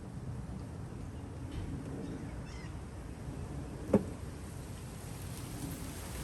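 Low, uneven outdoor rumble on the microphone, with a single sharp knock about four seconds in.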